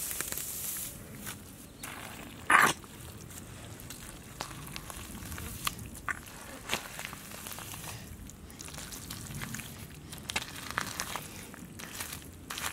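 Bare hands digging and squeezing through wet mud, making irregular squelching and crackling sounds with small sharp ticks. One much louder short burst comes about two and a half seconds in.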